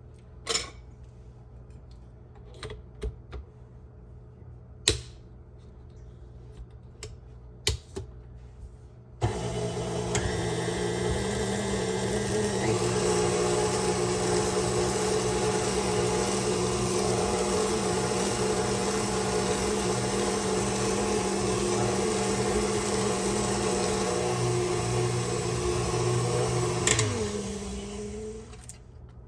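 Scattered clicks and knocks for several seconds, then about nine seconds in a KitchenAid stand mixer's motor starts suddenly and runs steadily, driving the Spiralizer Plus attachment through a daikon radish. Near the end it is switched off and winds down, its pitch falling.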